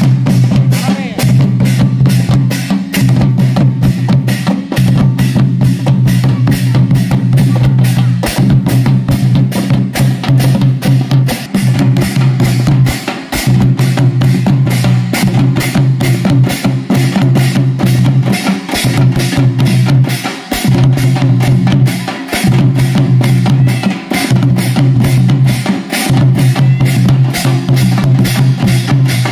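An ensemble of large barrel dhol drums beaten with sticks, a small lap drum and clashing brass hand cymbals, playing a fast, dense rhythm over a heavy low boom. The playing breaks off briefly every few seconds and starts again.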